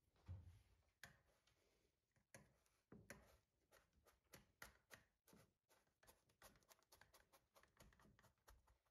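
Faint repeated pats and crunches as the bottom of a small glass presses buttered biscuit crumbs down into a cheesecake base, about two or three strokes a second.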